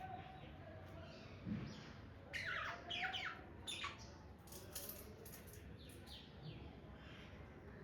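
Pet budgerigars chirping faintly: a quick run of short, falling chirps a couple of seconds in, then a few scattered softer ones.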